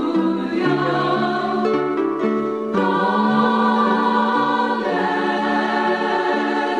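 Slow music of long held, choir-like chords that change about three seconds in and again about five seconds in.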